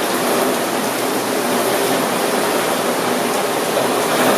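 Steady rain falling, a dense even hiss with no single drops standing out.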